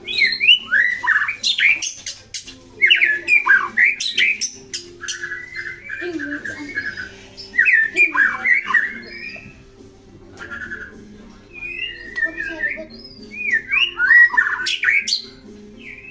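White-rumped shama singing: bouts of varied song made of sweeping whistled notes, rapid trills, sharp clicks and harsh notes, with short pauses between the bouts.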